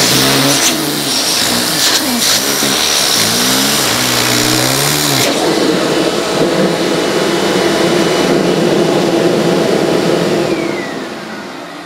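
Vacuum cleaner hose running loudly, its pitch wavering for the first five seconds or so, then a steady whoosh that fades near the end.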